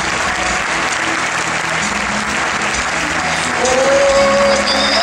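Large stadium crowd applauding. About three and a half seconds in, music starts over the applause with a held, wavering note.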